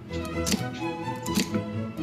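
Chef's knife chopping through celery onto a cutting board, two crisp strokes about a second apart, over background music.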